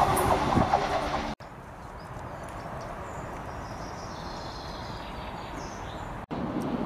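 A diesel multiple-unit train running through a station, its engines droning. About a second in the sound cuts off abruptly to a quieter, steady outdoor hum. Near the end it cuts again to louder noise.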